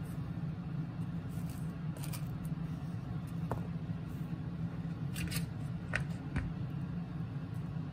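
Table knife scraping pâté across crisp cracker bread, with a few short scrapes and light taps over a steady low background hum.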